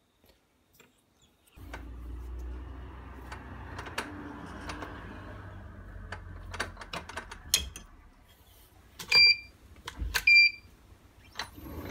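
An ER32 collet nut being screwed onto a steel collet holder by hand and tightened with a C-spanner: a steady low rumbling handling noise with scattered small metal clicks, then two sharp ringing metal clinks about nine and ten seconds in.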